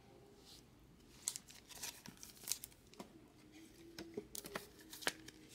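A trading card being handled and fitted into a clear plastic card holder: plastic crinkling and a series of sharp clicks, several of them loud, from about a second in.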